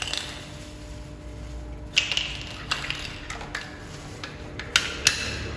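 Thin plastic bag crinkling as it is handled, with a few sharp clicks and knocks, the sharpest about two seconds in and near the end.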